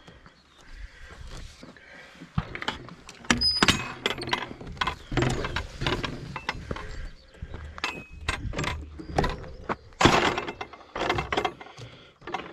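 A gravel bike clattering over a rough track, with dense, irregular knocks and rattles from the bike and chain. The loudest jolt comes about ten seconds in.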